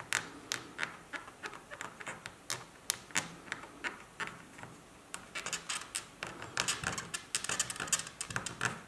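Irregular sharp clicks and light scratching of close-up handwork on a small guitar knob, growing quicker and denser about five seconds in.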